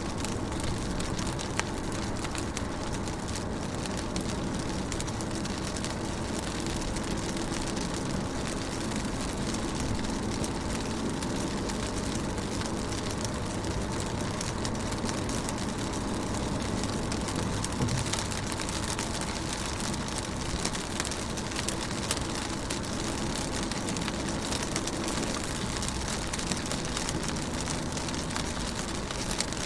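Rain falling steadily on a car's window and body, heard from inside the car: a continuous patter of drops with scattered sharper drop ticks over a low, steady rumble.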